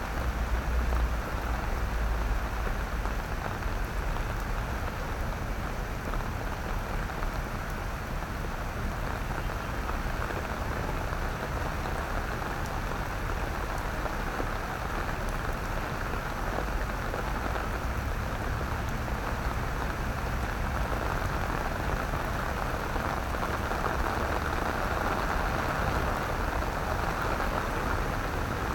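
Steady rain falling on wet paving, with a low rumble underneath that is strongest in the first couple of seconds.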